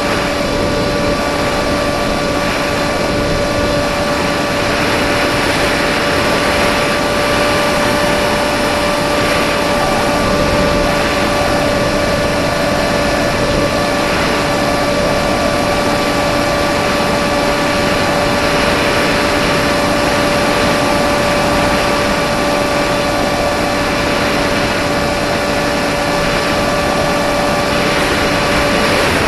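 Radio-controlled plane's motor and propeller running at steady throttle, heard from the onboard camera as a constant whine over a heavy rush of wind noise. The whine stops right at the end, leaving the rushing air.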